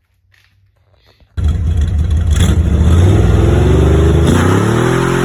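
A car engine cuts in suddenly about a second and a half in, running loud with a rough, low beat, then revs up about four seconds in and holds at the higher speed.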